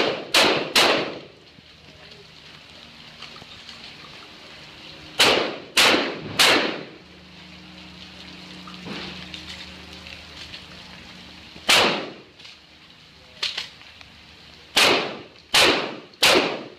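Shotgun blasts, about ten in all: a quick string of three at the start, another string of three about five seconds in, a single shot near twelve seconds and a fainter one just after, then a final quick string of three. Each shot leaves a short echoing tail under the range's roof.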